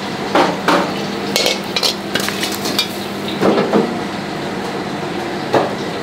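Metal ladle knocking and scraping against a plate as food is served, a few separate clinks over a steady kitchen hum.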